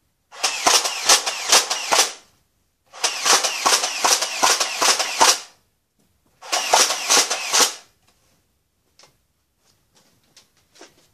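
Toy Nerf blaster firing in three rapid rattling bursts of clacking shots, each a second or two long, the last ending about 8 seconds in; only a few faint ticks follow.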